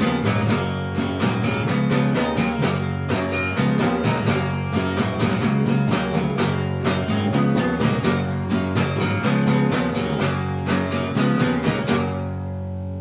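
Acoustic guitar strummed in a steady rhythm over an electric bass guitar, an instrumental passage with no singing. About twelve seconds in the strumming stops and the last chord rings out and fades.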